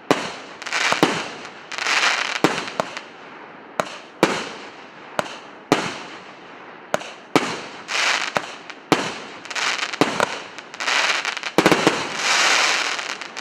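A 37-shot, 1.2-inch firework cake firing: sharp bangs about once a second, each followed by a crackling burst. Near the end a quick cluster of shots breaks into a long, loud crackle.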